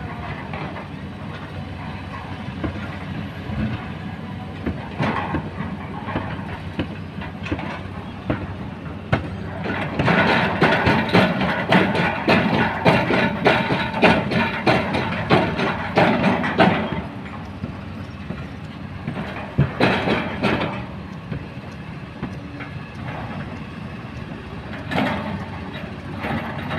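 Kobelco hydraulic excavator's engine running under load, with rattling and grinding of rock and steel as its bucket digs through stony riverbed soil. The clatter is loudest and densest through the middle, with shorter bursts later.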